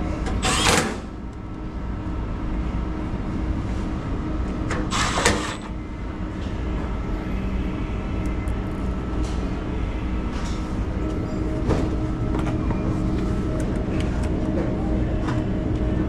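Steady hum of commercial refrigeration equipment, with several held tones. Two short, loud hissing noises cut in, one just after the start and one about five seconds in.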